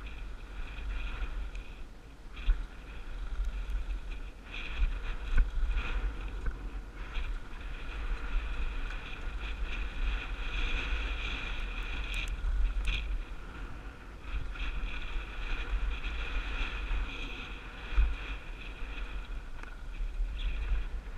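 Wind rushing over a helmet-mounted camera's microphone as a mountain bike rolls fast down a dirt trail, with steady bike rattle and a few sharp knocks over bumps.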